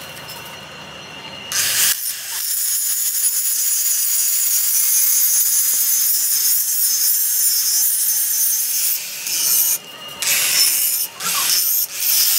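Electric angle grinder grinding the edge of a steel truck brake shoe, throwing sparks. It starts about a second and a half in, runs steadily, then breaks into several short bursts near the end.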